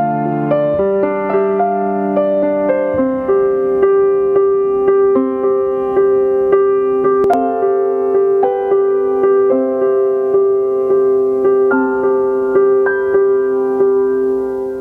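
Slow solo piano music with sustained notes and one note struck over and over about every half second beneath changing higher notes. A single sharp click sounds a little past halfway.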